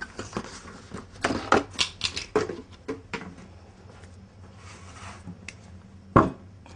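Kitchen handling noises as cling film is pulled from its roll over a metal baking tray: light clicks and rustles, then one sharp knock about six seconds in as the roll meets the tray.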